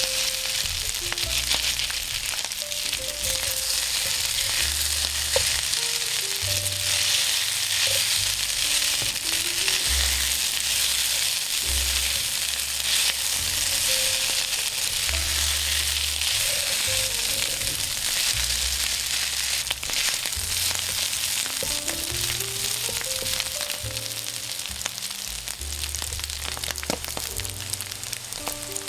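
Kimchi fried rice sizzling steadily in hot oil on an iron griddle, with quiet background music beneath.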